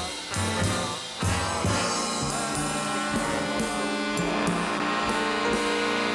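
A ten-piece jazz ensemble playing together: drum kit and cymbals keeping time under brass and saxophones, with electric guitar and bass. The horns hold sustained chords in the second half.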